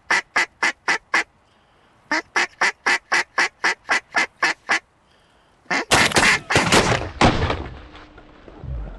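Mallard duck call blown in two quick runs of evenly spaced quacks, about five a second, with a short pause between them. About six seconds in, a volley of several shotgun blasts that ring on and fade.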